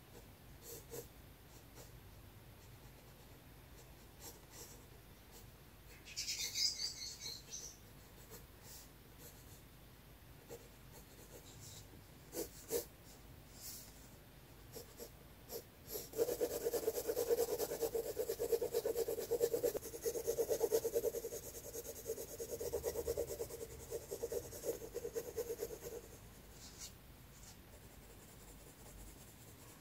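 Graphite pencil scratching on sketchbook paper: scattered light strokes, a brief brighter scratch about six seconds in, then about ten seconds of fast, even back-and-forth hatching from about halfway, the loudest part.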